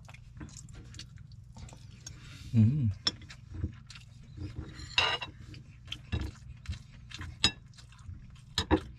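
Metal spoon and fork clinking and scraping against a ceramic bowl while eating, in short irregular clicks. A brief voiced hum about two and a half seconds in.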